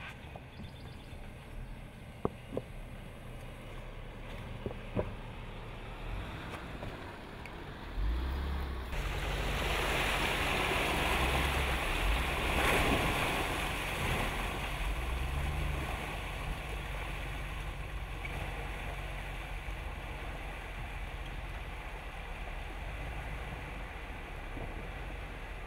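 Jeep Grand Cherokee Trailhawk running low and quiet at a crawl, with a few sharp knocks in the first five seconds. From about eight seconds in, a loud rush of splashing water as it drives through a muddy creek, with the engine rumbling underneath. The splashing eases a little in the second half.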